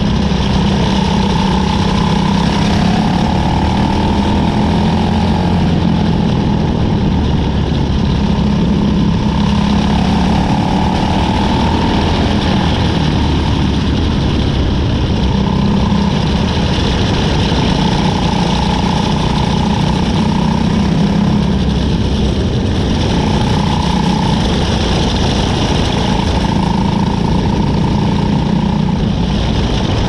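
Cadet wing sprint car's engine running at speed, heard from on board as the car laps a dirt oval, its note swelling and easing every few seconds.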